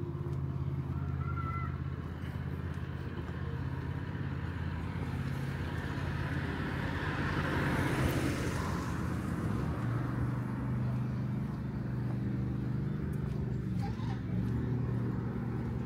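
Street traffic: a car passes, building to its loudest about halfway through and then fading, over a steady low engine hum.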